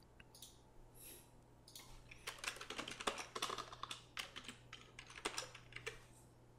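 Typing on a computer keyboard: a few separate clicks, then a quick run of key clicks from about two seconds in, as a short word is typed.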